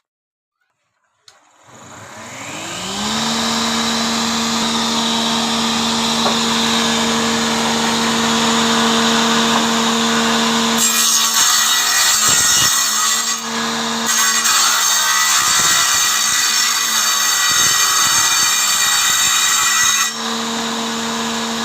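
Handheld electric wood cutter with a toothed blade switched on with a click, spinning up to a steady high whine. About halfway through, the blade cuts into the workpiece for roughly nine seconds with a harsh rasping noise, then runs free again.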